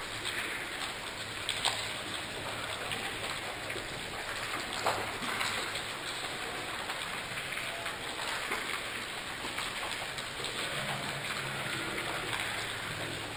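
Steady rain falling on forest leaves, an even hiss with a couple of louder single drops.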